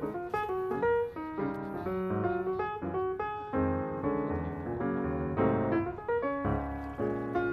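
Background music: a piano playing a quick, busy line of notes over chords.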